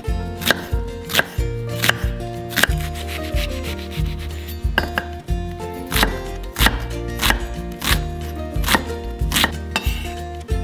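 Knife chopping on a cutting board: a series of sharp chops a little over half a second apart, with a short pause around the middle, over soft background music.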